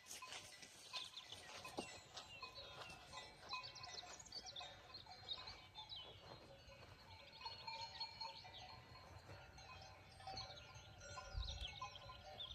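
Faint livestock ambience: bell-like ringing tones together with many short, high chirping calls.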